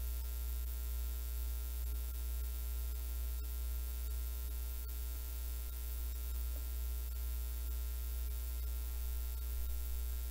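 Steady low electrical mains hum with a thin, even buzz of steady tones above it and a few faint clicks.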